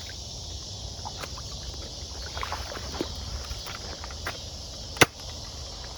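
Outdoor ambience: a steady high insect hum with a low wind rumble, scattered light clicks, and one sharp loud click about five seconds in.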